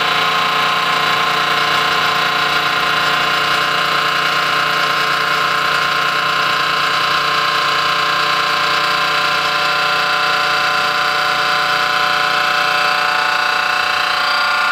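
Robotic seam grinder's abrasive wheel grinding the inside weld seam of a steel pipe down to nearly flush. It makes a loud, steady whine with several held tones that does not change.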